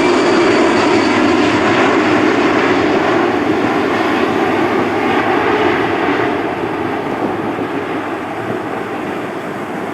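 Airliner engines passing by as a loud, steady rushing noise that fades over the last few seconds as the aircraft moves away, the higher sound dying out first.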